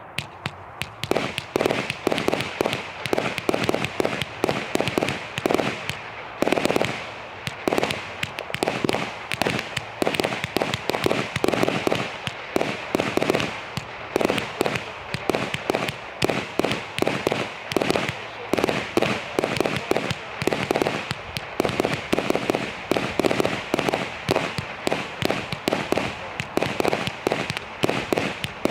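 Sovereign Fireworks 'Midnight Snow Storm' firework going off: a rapid, unbroken run of sharp bangs and crackling that starts about half a second in.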